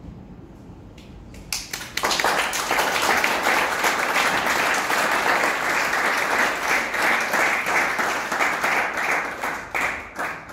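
Audience applauding: a few scattered claps, then full applause from about two seconds in, thinning out near the end.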